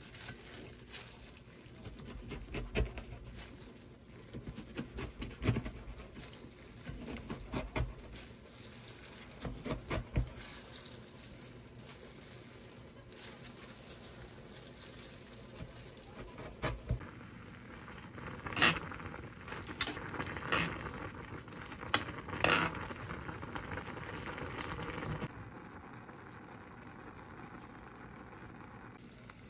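Kitchen knife cutting cabbage kimchi on a plastic cutting board: irregular knocks of the blade on the board, with a run of sharper, louder clicks about two-thirds of the way through. Near the end the knocking stops and a faint steady hiss remains.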